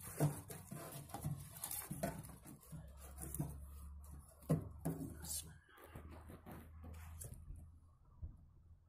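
Hands laying firewood and kindling in a fire pit: irregular rustling with short wooden knocks and clicks, the loudest about four and a half seconds in.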